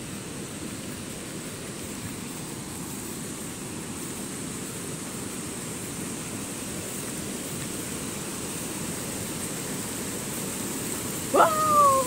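Steady low roar of a distant waterfall, growing slowly louder. Near the end comes one short, high call that rises and then holds.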